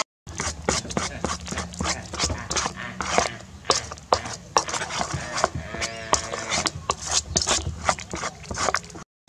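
A metal spoon scraping and clinking against an aluminium bowl as it stirs a thick, grainy marinade: quick irregular clicks and scrapes. A brief pitched sound comes about six seconds in.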